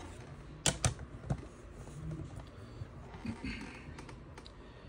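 Hard plastic PSA graded-card slabs clicking against each other as they are handled and shuffled through the stack: two sharp clacks close together and a third soon after in the first second and a half, then a few lighter clicks near the end.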